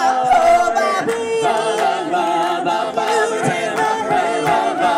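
Male a cappella vocal group singing a doo-wop "ba ba ba" chorus in close harmony, with the audience singing along.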